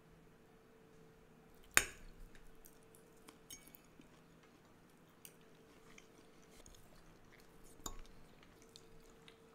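Metal spoon and fork clinking and scraping on ceramic plates as food is served and eaten, with a sharp clink about two seconds in and another about eight seconds in, and light taps in between.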